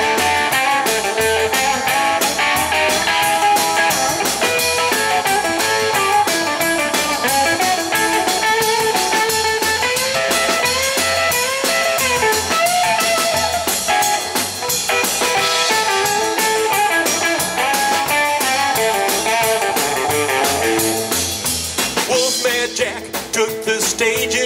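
Live rockabilly band playing an instrumental break between verses: electric guitar carrying a bending lead line over upright bass and a steady drum-kit beat.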